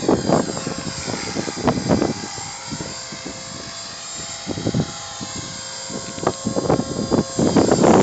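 An engine or motor whose speed sags and then recovers: its stack of tones glides down through the first half and climbs back up near the end, with irregular knocks and bumps over it.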